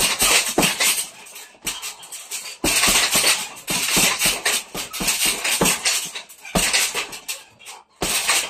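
Boxing gloves punching a hanging heavy bag in fast flurries, a sharp thud with each blow, several a second, with a short lull about a second in.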